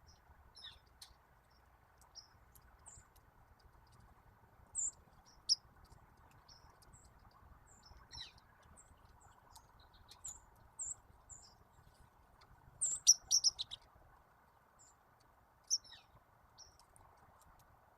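Small backyard songbirds chirping: scattered short, high calls, with a quick run of several notes about thirteen seconds in, over a faint steady background hiss.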